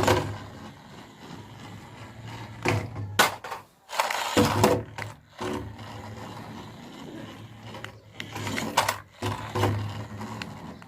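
Toy RC cars' small electric motors and plastic gearboxes whirring in bursts of a second or two as they are driven and push against each other, with sharp knocks from the plastic bodies colliding.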